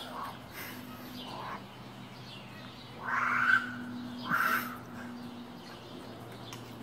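Harsh animal calls: a few faint ones in the first second and a half, then two loud ones about three and four and a half seconds in, over a faint steady low hum.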